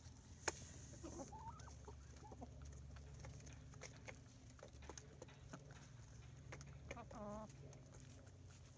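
Pullets clucking quietly: a few short clucks in the first seconds and a longer wavering call about seven seconds in, with scattered light clicks as they peck at the ground.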